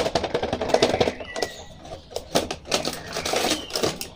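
Plastic and cardboard toy packaging crackling and rustling in quick, irregular clicks as an action figure is taken out of its box.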